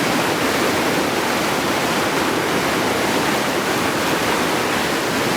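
Whitewater of a big rapid on the Sun Kosi River, rushing steadily.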